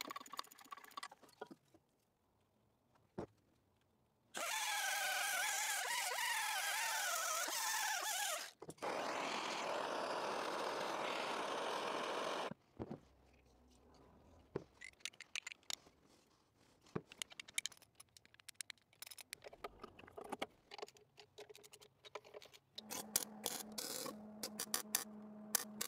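An aerosol can sprayed in two long hissing blasts of several seconds each, the first with a wavering whistle in it. Light tool clicks and scrapes follow. Near the end a MIG welder starts, crackling over a steady hum.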